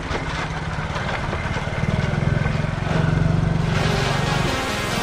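Honda C90 step-through's small single-cylinder four-stroke engine running at steady speed while riding, with a hiss building near the end.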